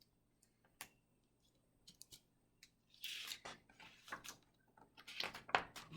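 Faint paper handling: a picture book's pages being turned, with small clicks and a soft swish of paper about three seconds in.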